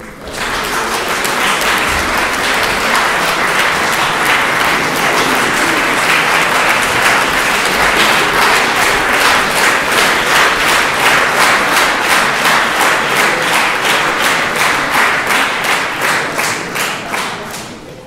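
Audience applause greeting a conductor walking out to the choir. It starts suddenly, holds steady, and then thins into more separate claps before dying away near the end.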